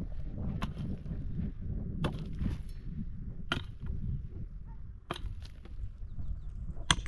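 Five sharp knocks, about a second and a half apart, over a low steady rumble.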